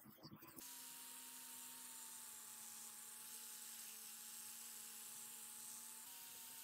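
Electric angle grinder with a red abrasive wheel running steadily against a rusty steel tube, a faint, even whine that starts about half a second in after a few short brush strokes; its pitch shifts slightly near the end.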